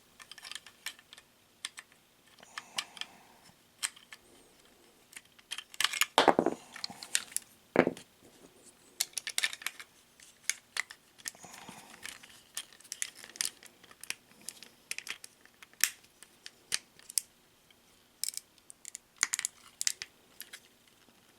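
Small toy parts being handled and pressed together by hand: scattered light clicks, taps and rattles, with a couple of louder knocks about six and eight seconds in, as a piece is worked until it pops into place.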